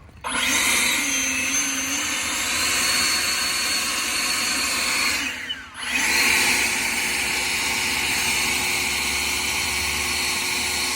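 Ego cordless handheld leaf blower running: its electric fan spins up with a steady whine and rush of air, dips and spins down briefly a little past halfway, then runs steadily again.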